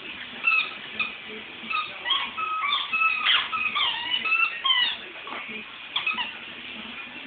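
Schnauzer puppy whining in a quick string of short, high-pitched squeaks that bend up and down in pitch, with a few light clicks.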